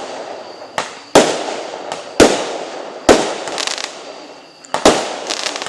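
Fireworks bursting: about four loud bangs roughly a second apart, with a couple of smaller pops, each trailing off in a crackling, echoing decay.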